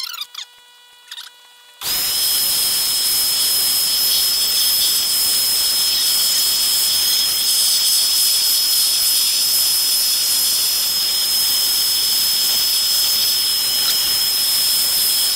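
Vacuum cleaner switching on about two seconds in and running steadily, a loud rushing hiss with a steady high whine, its hose nozzle held against the head to suck up hair.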